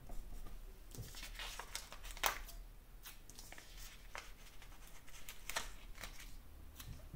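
Paper stickers being handled: small pennant stickers peeled off a sticker sheet and pressed onto a planner page. The result is light, irregular paper rustles and taps, the sharpest a little over two seconds in.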